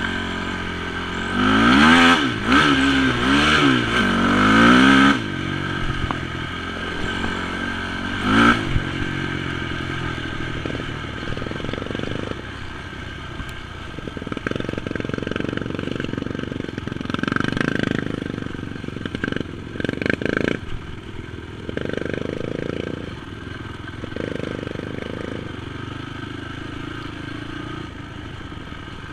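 Honda TRX450 sport quad's single-cylinder four-stroke engine revving up and down several times in the first few seconds, with one more short rev about eight seconds in. It then runs at lower revs, with knocks and rattles as the quad bumps over a rough, muddy dirt trail.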